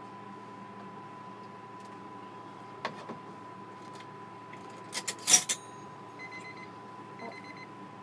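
Kitchen utensils clattering against a glass utensil cup: two light clicks a little under three seconds in, then a louder quick rattle of knocks around five seconds in. Three short groups of quick high electronic beeps follow, over a faint steady electrical hum.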